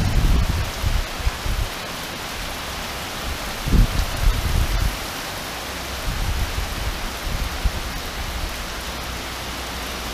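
Heavy tropical-storm downpour, a steady hiss of rain falling on surfaces, with a few low rumbles, the loudest about four seconds in.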